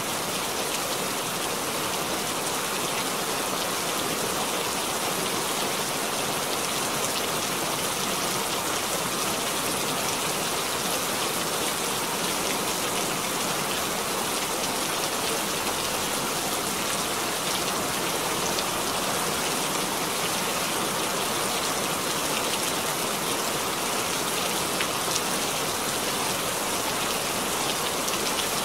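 Steady rain falling, an even hiss with faint single drops ticking through it.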